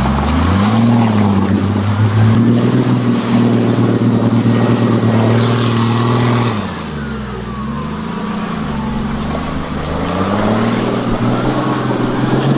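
Mercedes G-Class W463's 3.5-litre turbo diesel engine revving under load as the off-roader drives. The engine note rises and is held high, drops about six and a half seconds in, then climbs and falls again before rising once more near the end.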